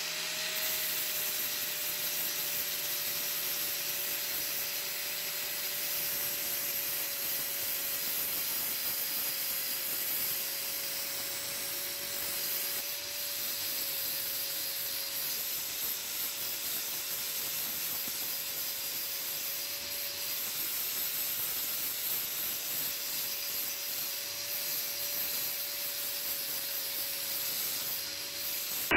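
Angle grinder with a flap disc grinding rust and scale off a steel axe head. The motor whine rises to full speed right at the start, then holds steady under a continuous abrasive hiss.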